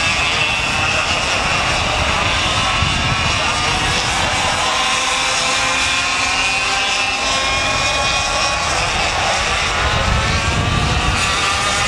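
Several 100cc two-stroke Leopard kart engines racing, a high-pitched buzz of overlapping engine notes that rise and fall as the karts accelerate and lift through the corners.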